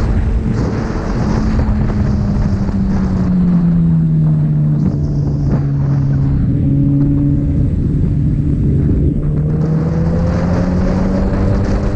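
Sport motorcycle engine running while riding. Its pitch sinks over the first few seconds, drops a step about five seconds in, then climbs again from about nine seconds on.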